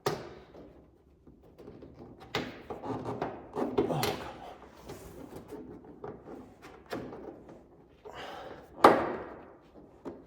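Knocks, clunks and rattles of parts and hardware being handled while a front spoiler is fitted under a car. A sharp knock at the very start, a cluster of them around two to four seconds in, and the loudest single knock near the end.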